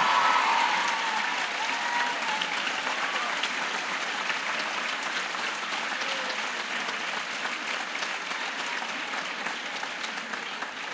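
A large audience applauding in a standing ovation: dense, sustained clapping, loudest at the start and slowly fading.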